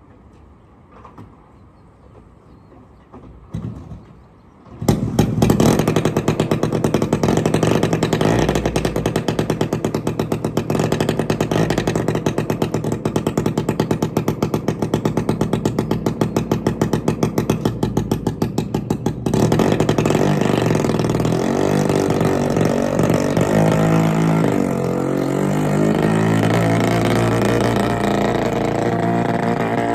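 1960 Piaggio Ape C's small two-stroke single-cylinder engine starting about five seconds in and running with a rapid, even popping beat. About 19 seconds in its note changes and shifts in pitch as the three-wheeler pulls away.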